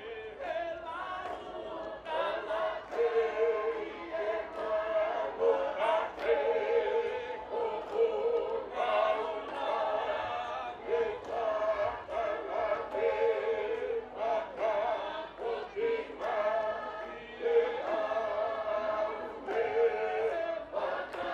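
Large mixed choir of students singing a Tongan lakalaka, the sung and chanted part of the traditional group dance.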